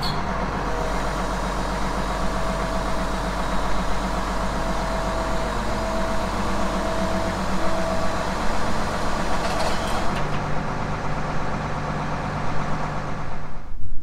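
Tractor diesel engine idling steadily, a constant low hum.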